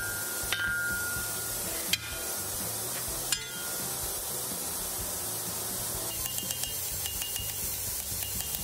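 Three separate hammer blows on a steel anvil, the first and last ringing briefly, over a steady hiss.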